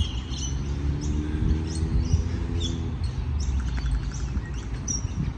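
Birds chirping again and again over a steady low rumble. Near the end there is one faint click as a golf club strikes the ball on a short chip shot.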